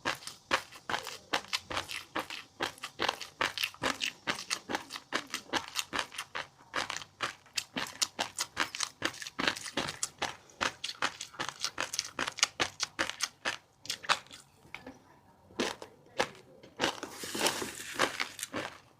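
Close-miked chewing of fish roe and crunchy chili-garlic seafood: rapid crisp crunches and small popping clicks, with a short pause a few seconds before the end and then a denser burst of crunching.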